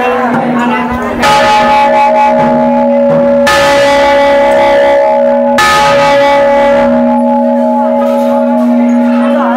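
Large brass temple bell (ghanta) struck three times, about two seconds apart, each strike ringing on long into the next.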